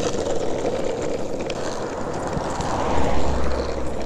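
Longboard wheels rolling on asphalt, a steady rumble that grows deeper and a little louder about three seconds in.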